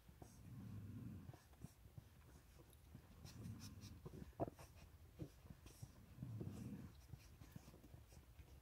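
Faint sounds of newborn puppies suckling at their mother dog: scattered small wet clicks and smacks. Under them, the mother dog breathes slowly and softly, three low breaths a few seconds apart.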